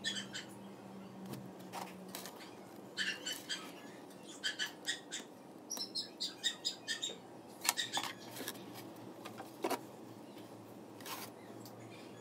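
Quick runs of short, high chirps, typical of a small bird calling, coming in several bursts. A few soft knocks of wooden twigs against the board fall between them, over a faint low hum.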